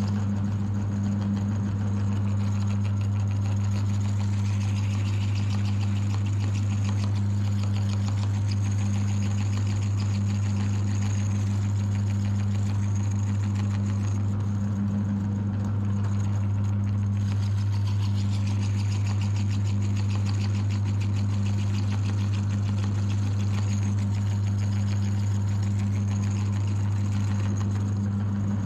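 Electric meat grinder motor running steadily with a deep hum, and a faint high whine that rises and falls every few seconds.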